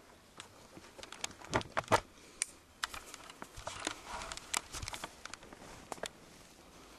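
Handling noise from a camcorder being grabbed and swung: a quick run of uneven clicks, knocks and rustles, the loudest a pair of knocks about two seconds in.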